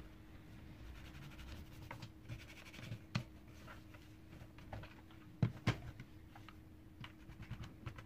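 Hands working on the plastic parts of a vacuum cleaner floor head: scattered light clicks, taps and scratching, with two sharper knocks in quick succession a little past halfway.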